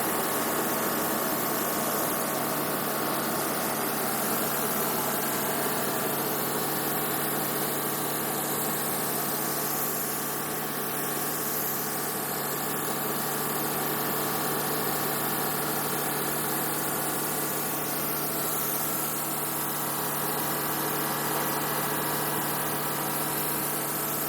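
A motor runs steadily with an even hum and a strong airy hiss, unchanging throughout.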